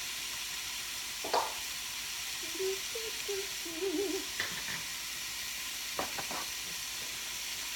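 Ground beef sizzling steadily in a frying pan, with a few sharp knocks of a utensil or pan being handled, about a second in, midway and near the end.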